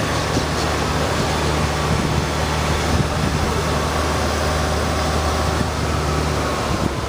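Suzuki 175 outboard motor running steadily with the boat under way: a constant low engine hum under a steady rush of noise.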